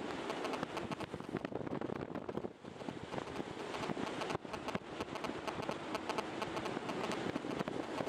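Wind rushing and buffeting over the camera's microphone in soaring flight, a steady rush full of crackling, with a brief lull about two and a half seconds in.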